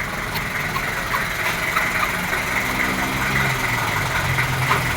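A motor vehicle engine idling steadily, with a low hum that shifts in pitch a little partway through.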